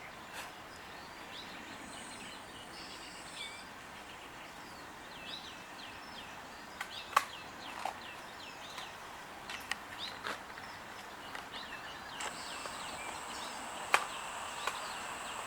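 Songbirds singing in repeated warbling phrases over a steady outdoor background hiss, with a few sharp clicks. A thin, steady high tone joins near the end.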